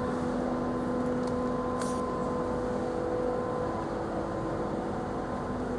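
Steady electrical hum and fan-like drone of running equipment, a few even tones over a constant hiss, with one brief tick about two seconds in.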